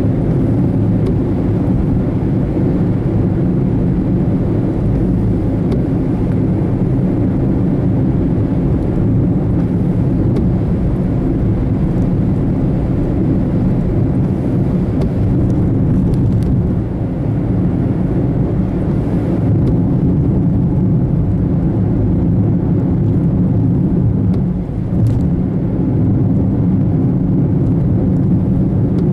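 Steady low rumble of a car being driven, road and engine noise heard from inside the vehicle.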